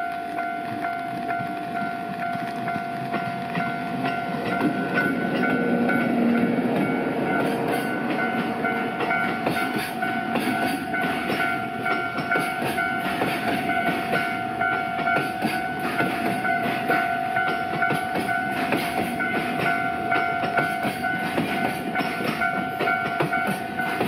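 EF64 electric locomotive pulling a freight train away. The train swells in level about four seconds in, then its wagons clatter steadily over the rail joints. A steady high tone sounds throughout.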